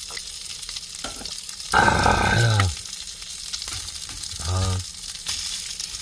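Duck meat sizzling steadily on a disposable grill plate, with a man's loud short exclamation about two seconds in.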